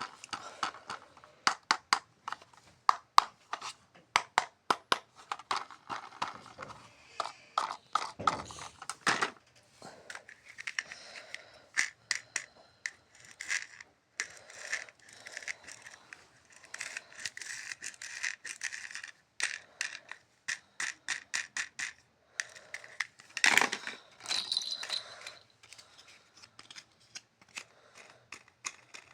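Toy packaging being handled and opened: a busy run of clicks, crinkles and scrapes of plastic and cardboard, with one louder rustle about two-thirds of the way through.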